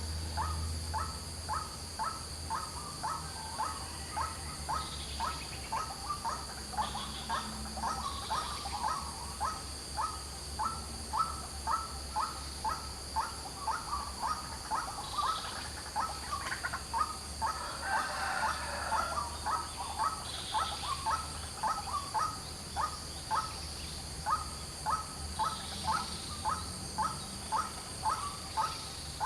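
White-breasted waterhen calling its fast, endlessly repeated harsh notes, about three a second, over a steady high whine in the background.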